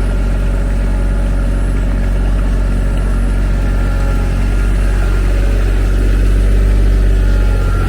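TYM T313 sub-compact tractor's diesel engine running steadily.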